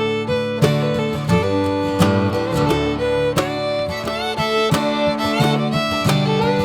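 Background music: fiddle melody over plucked acoustic guitar.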